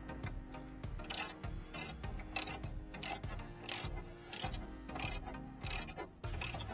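Socket ratchet being worked on the nuts, a short burst of clicking on each back-swing, about two a second, starting about a second in, over faint background music.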